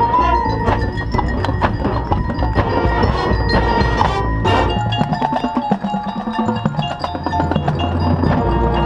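Marching band music, with struck mallet percussion and bell-like ringing notes prominent over sustained low ensemble notes.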